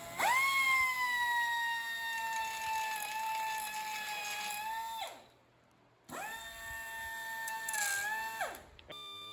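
Grinder run twice on freshly welded steel edges: each time the whine spins up quickly, holds fairly steady, then winds down after the trigger is released, with about a second of quiet between runs. Its pitch sags briefly near the end of the second run.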